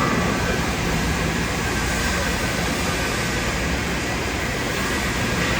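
TIG (argon) welding arc running on a pipe joint: a steady, even hiss over a constant low hum.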